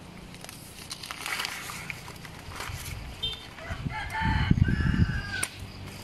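A rooster crowing once, a pitched call starting about three seconds in and lasting around two seconds, ending on a held high note. A loud low rumble runs under the middle of the crow.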